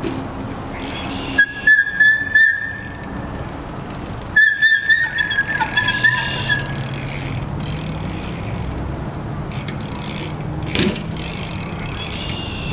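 Rim brake with clear brake pads on a Sunday Funday BMX squealing twice: two high, whistle-like squeals a second or two long, a couple of seconds apart. A single sharp click follows near the end.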